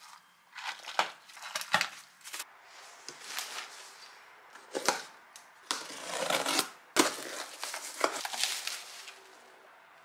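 Utility knife slicing open a cardboard box, with cardboard and plastic packaging being handled: irregular scraping, tearing and crinkling strokes broken by a few sharp knocks.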